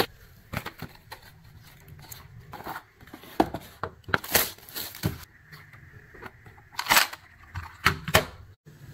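Irregular clicks, clacks and rustles of a precision screwdriver set's plastic storage case and cardboard packaging being handled and the hinged case opened, with a couple of louder plastic clacks about seven and eight seconds in.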